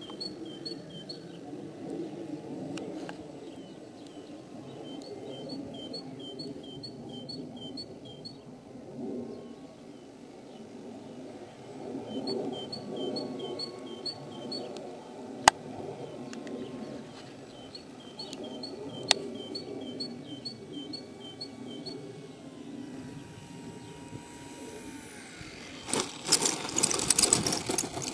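A bird chirping in repeated runs of quick high notes, about three a second, over a steady outdoor rumble of wind. Two sharp clicks come midway, a faint whine glides down in pitch, and a louder rushing noise swells near the end.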